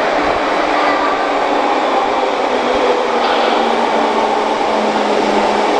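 Underground metro train approaching through the tunnel into the station: a steady, loud rumble with a faint hum, echoing in the enclosed platform.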